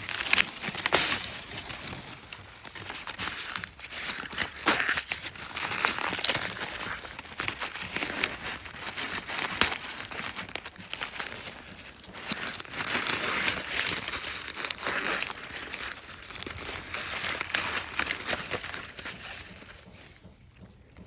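Corn husks and leaves rustling and tearing as ears of sweet corn are picked and husked by hand, in repeated bursts of crinkling with a few sharp cracks.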